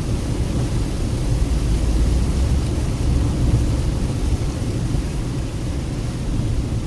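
A car driving along a road: a steady, deep rumble of tyres and engine.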